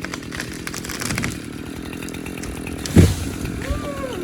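An engine runs steadily, with a sharp knock about three seconds in and a brief squeal near the end.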